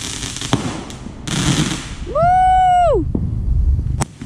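Consumer fireworks going off: hissing launches and sharp pops, with a loud, steady, high whistling tone lasting about a second near the middle.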